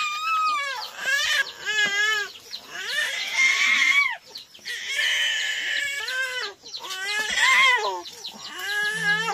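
Chickens clucking, a quick run of short, arched calls one after another.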